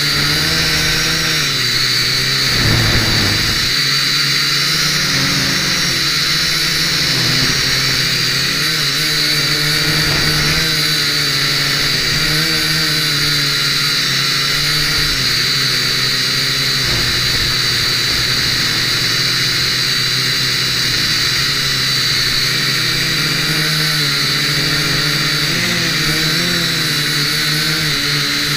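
The Blade mQX quadcopter's four small electric motors and propellers whining steadily close up, the pitch wavering as the motors speed up and slow down to hold the tiny quad against the wind. A brief low rumble of wind on the microphone about three seconds in.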